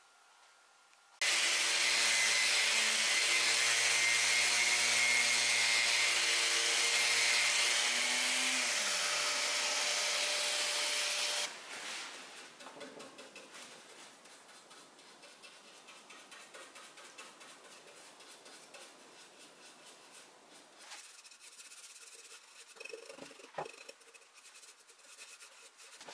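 A motor-driven power tool runs with a loud hiss from about a second in. Its motor hum slides down in pitch about eight seconds in as it spins down, and the hiss stops abruptly a few seconds later. After that come quieter scratching and rubbing on wood, with a few small clicks near the end.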